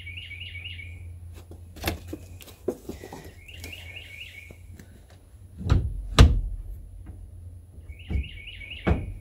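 A songbird repeating a short phrase of four or five quick, rapid chirps three times, about four seconds apart. Between the phrases come several knocks and thuds of work on the truck, the loudest a pair of thuds about six seconds in, over a steady low hum.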